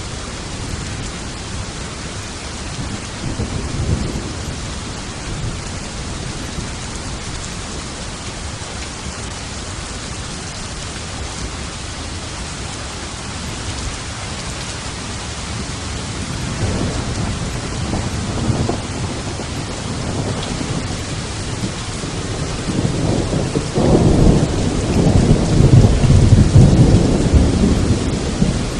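Steady heavy rain with rolling thunder: a low rumble a few seconds in, more from about halfway, then a long, loud rumble building near the end.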